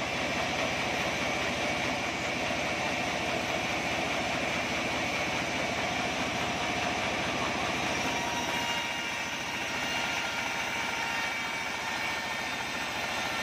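Sawmill band saw running steadily, its blade sawing through an acacia log with a continuous mechanical drone and hiss.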